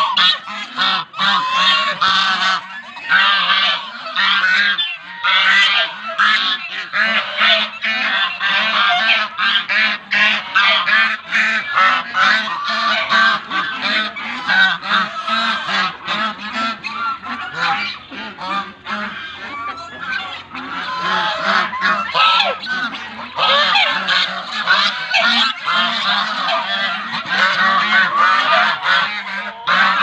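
A flock of domestic geese honking nonstop, many harsh calls overlapping with no pause.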